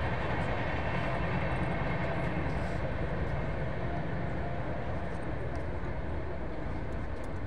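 Steady low rumbling noise with a faint hiss above it, without a clear rhythm or break.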